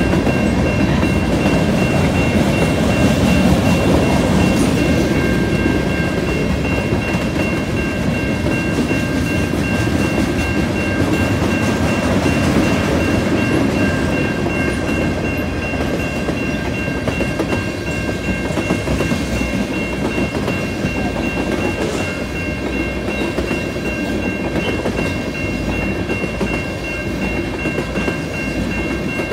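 Freight train cars rolling past a grade crossing, a steady loud rumble of wheels on rail with clickety-clack, easing slightly in the second half. Steady high ringing tones, from the crossing's warning bell, run over it throughout.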